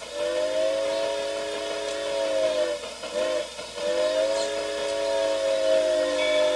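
Steam locomotive chime whistle, several notes at once, blowing a long blast, a short one, then another long one: the close of a long-long-short-long grade-crossing signal.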